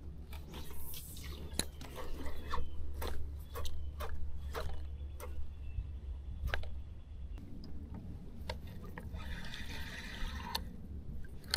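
Small plops and drips of water against a small boat's hull, heard as irregular sharp clicks over a steady low hum. The hum stops about seven seconds in, and a brief hiss comes near the end.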